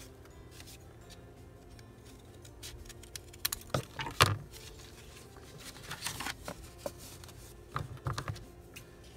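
Scissors snipping the corners off folded paper tags, with paper rustling as the tags are handled, in three short bursts of sharp snips and crinkles; the loudest is about four seconds in. Faint background music runs underneath.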